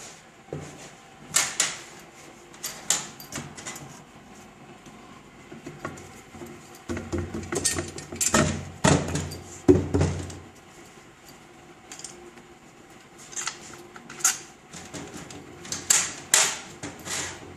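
Workshop handling of tools and metal gearbox parts: irregular sharp clicks, clinks and knocks, with a denser run of louder knocking and rattling in the middle.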